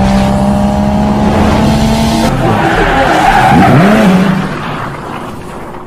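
Race-car sound effects: a car engine running hard with tyres skidding, then fading away over the last two seconds.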